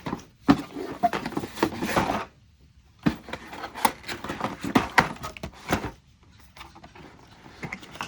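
Packaging rustling and parts knocking as items are handled and lifted out of a case, in two busy stretches with sharp clicks, then quieter handling near the end.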